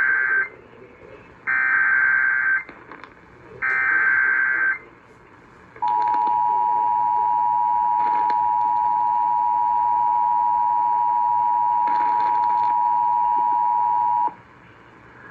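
Emergency Alert System activation broadcast on radio. It opens with the end of the first of three SAME digital header bursts, then two more buzzing data bursts of about a second each. Then comes the two-tone EAS attention signal, a steady dual-tone beep held for about eight and a half seconds, which signals that an emergency alert message is about to be read.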